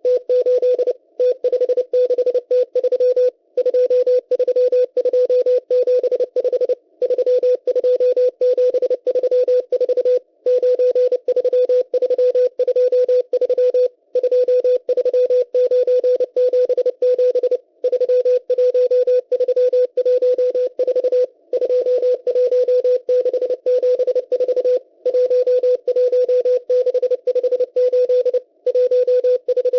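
Shortwave Morse code from the M12 number station: a single steady beep near 500 Hz keyed very fast, with receiver hiss, sending groups of numbers with a brief pause about every three and a half seconds between groups.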